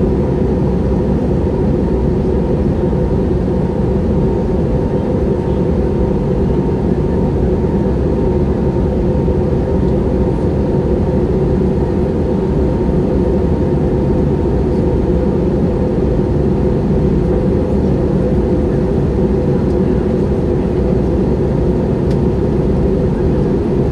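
Airbus A321neo cabin noise heard inside by the wing: the steady drone of the jet engines and rushing air, deep and unbroken, with a faint steady whine on top.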